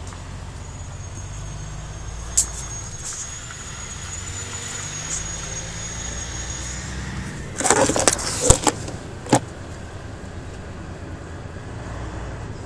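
DAF XF 105 truck's diesel engine, a PACCAR MX straight-six, running at low speed, heard from inside the cab, with a thin high whine for the first half. About eight seconds in, a cluster of loud knocks and rattles lasting a couple of seconds.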